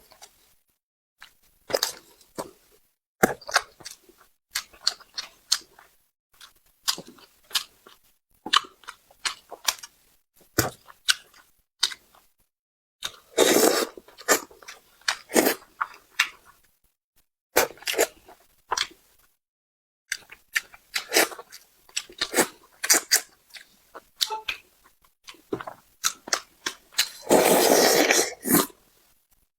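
Close-up eating sounds of a person eating spicy braised carp: irregular wet chewing, lip smacks and small clicks. Two longer, louder sucking or slurping stretches come about halfway through and near the end.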